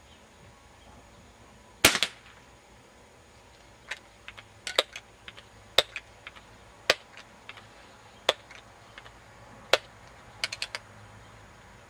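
A single air pistol shot from a Crosman 1377: one loud sharp crack about two seconds in. It is followed by a scatter of fainter, irregular sharp clicks.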